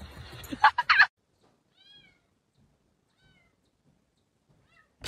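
A cat meowing softly three times, short calls that rise and fall, about one and a half seconds apart. They follow a burst of loud, sharp sounds in the first second.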